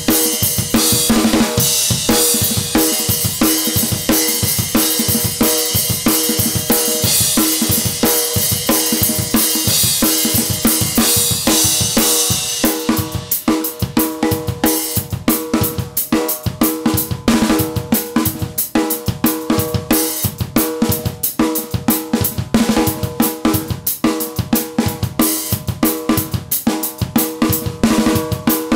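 Acoustic drum kit played solo: a steady rock beat of kick, snare and cymbals. For the first dozen seconds the cymbals wash heavily over the beat, then they thin out into a tighter pattern of separate hits.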